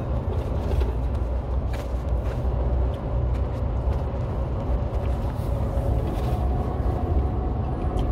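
Steady low rumble of a car on the move, heard from inside the cabin, with a few brief faint clicks over it.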